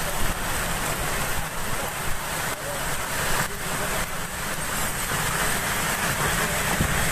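Heavy rain and strong wind: a steady rushing noise.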